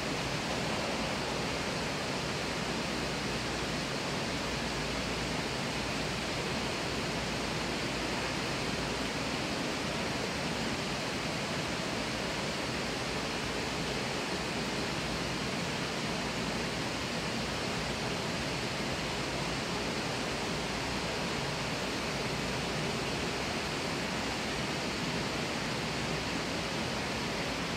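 Steady, even rushing of water from an indoor rock-pool water feature, with no breaks or changes.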